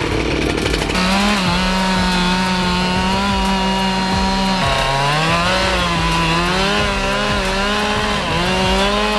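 Two-stroke chainsaw coming up to full throttle about a second in and running hard in a cut through a tree. Its pitch sags twice as the chain loads up in the wood, then climbs back.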